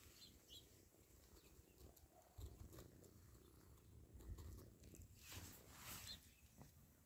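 Near silence: faint outdoor ambience with a soft low rumble and a few small ticks.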